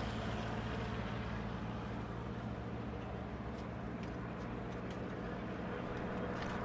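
City street traffic: motor scooter and vehicle engines running with a steady low hum, with a few light clicks in the second half.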